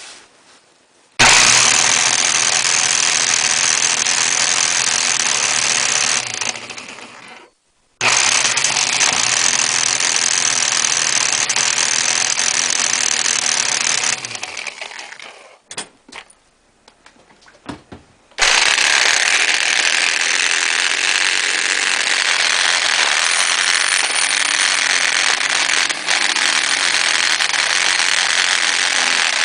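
Electric motor running with a loud abnormal noise, switched on three times: the first two runs stop and wind down, the third runs steadily, with a few short blips between. The noise is one the owner suspects comes from a failing bearing, ahead of the motor seizing.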